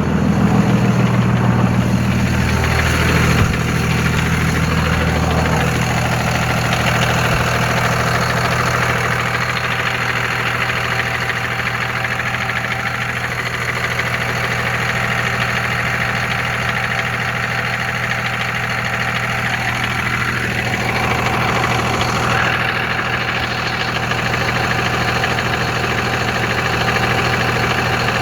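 2001 Cummins 5.9-litre inline-six turbo-diesel running, mostly at a steady idle, with a short rise in pitch about 20 seconds in. It makes a rattle that the owner can't place between an exhaust leak and the flywheel.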